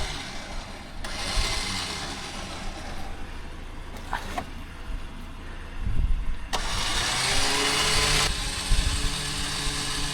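A vehicle engine running, with stretches of loud rushing noise, the loudest about two-thirds of the way through, and a steady whine after it.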